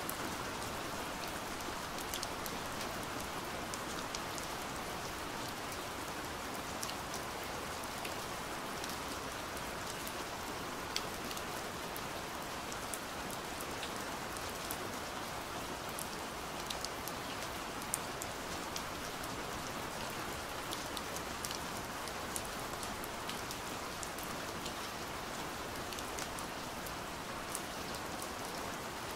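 Steady rain: an even hiss with scattered sharp ticks of single drops.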